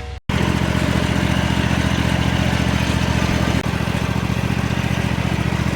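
Riding lawn mower's small engine running steadily, with a slight drop in level a little past halfway.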